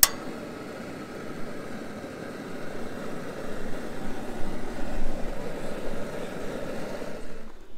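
A sharp click of the stove's igniter as the knob is turned, then a Camp Chef Tundra Pro propane burner lights and burns with a steady rushing hiss.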